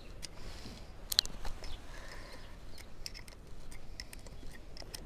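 Hand tool clicking and scraping on bolts as they are unscrewed from the lower housing of a Hangkai 4 hp outboard motor: irregular small metallic clicks, the sharpest about a second in.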